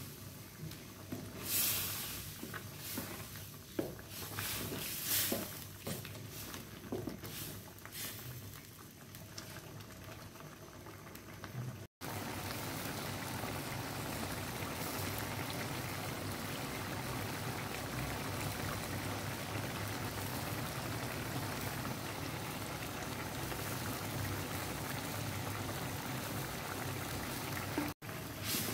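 Coconut-milk sauce in a nonstick wok, stirred with a wooden spatula that scrapes and taps against the pan. From about twelve seconds in, the sauce bubbles at a steady boil.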